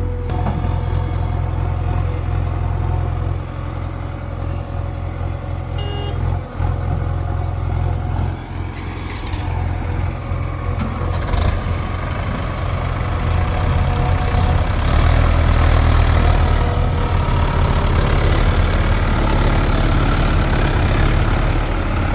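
Heavy diesel engine running with a steady low drone; about fourteen seconds in it grows louder and works harder, as under load.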